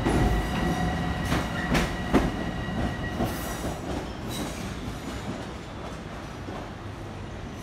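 A Long Island Rail Road Bombardier M7 electric multiple-unit train running out past the platform. Its wheels clack over rail joints several times in the first two seconds, then the running noise fades as the last car pulls away.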